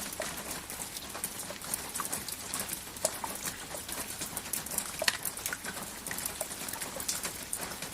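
Steady rain hiss with many irregular sharp taps of individual drops striking a surface.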